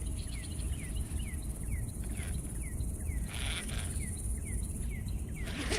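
Outdoor riverside ambience: a steady high-pitched insect buzz, with a regular series of short falling chirps about two or three a second. Two brief rushing noises come about two and three and a half seconds in, over a steady low rumble.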